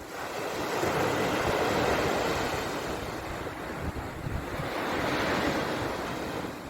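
Sea surf: two waves swell and wash in, the first peaking a second or two in and the second about five seconds in.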